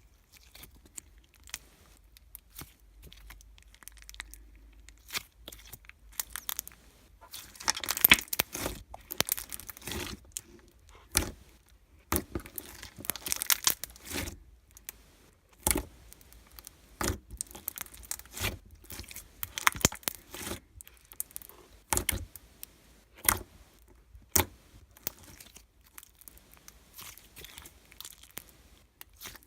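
Crinkling and tearing handling sounds in irregular bursts with scattered sharp clicks, busiest from about a quarter to halfway through.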